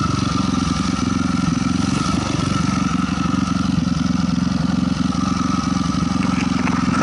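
Honda CRF250R dirt bike's single-cylinder four-stroke engine running at a fairly even throttle while the bike is ridden over a dirt track. A little clatter can be heard near the end.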